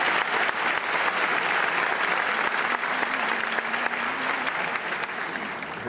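A large audience clapping, starting loud and slowly dying down toward the end.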